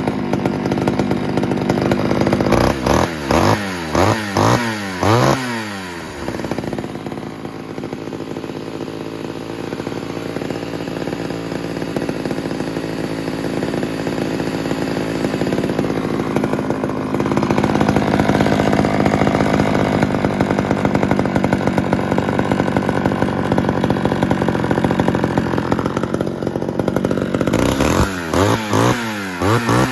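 Homelite Super XL two-stroke chainsaw engine running, blipped through about five quick revs a few seconds in and again near the end, with steady running in between that picks up a little past the middle.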